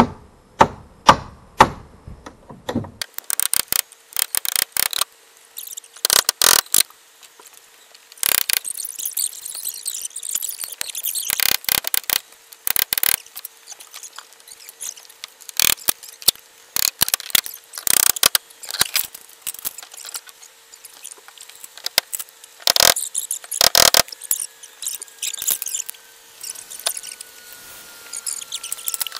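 Wooden wall boards being pried and pulled off an old house's wall: irregular sharp knocks and cracks of wood, with squeaks from the nails.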